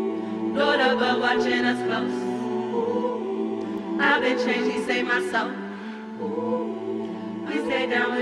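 Large gospel choir singing held chords, with phrases that swell about every three to four seconds.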